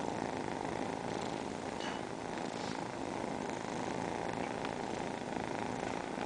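Sleeping tabby kittens purring steadily at close range, a continuous unbroken drone that the title likens to airplane engines.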